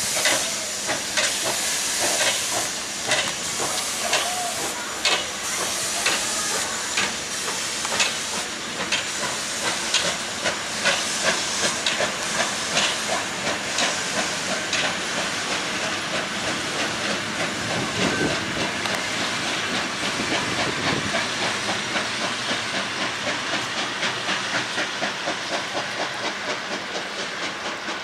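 Steam locomotive pulling away from a stand: a strong hiss of steam at first, then chuffing exhaust beats that quicken steadily from about one a second to three or four a second as it gathers speed.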